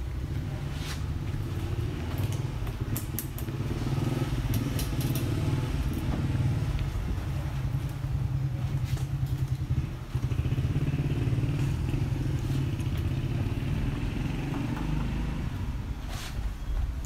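A motor running steadily with a low hum, dipping briefly about ten seconds in, with scattered clicks and knocks on top.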